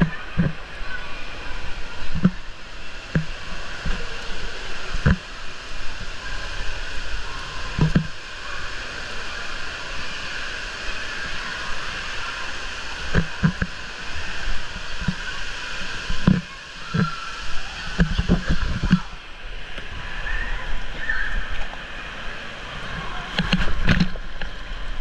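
Water rushing down a water-park slide under a sliding rider, with scattered dull thumps every second or two. Near the end comes a splash into the pool.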